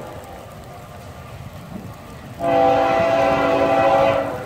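Diesel freight locomotive's air horn sounding one long blast, a chord of several steady tones starting about two and a half seconds in and lasting nearly two seconds, over a low rumble from the approaching train.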